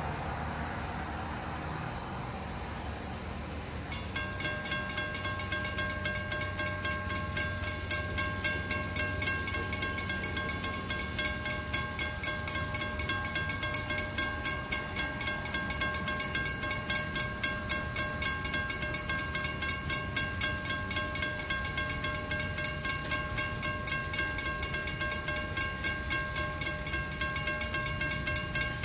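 Railroad crossing warning bell starting to ring about four seconds in, with fast, even strikes that go on steadily as the crossing gates come down, warning of an approaching train.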